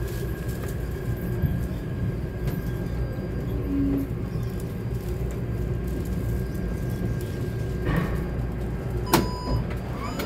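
Taipei Metro C371 train heard from inside the car as it stands at the platform: a steady low rumble with a faint steady high tone. About nine seconds in there is a sharp knock, followed by a brief ringing tone.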